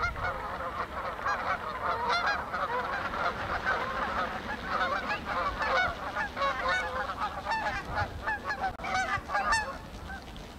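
A large flock of geese honking, with many calls overlapping in a continuous chorus.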